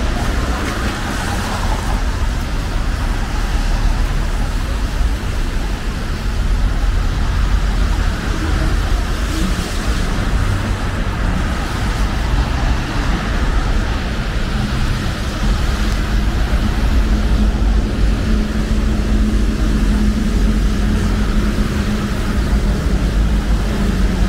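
City street traffic: cars passing with a steady low rumble. About two-thirds of the way through a low steady hum comes in and holds, like an engine idling close by.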